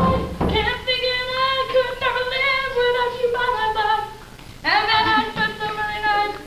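A girl singing without backing, holding one long note for about three seconds, then starting another phrase after a short break.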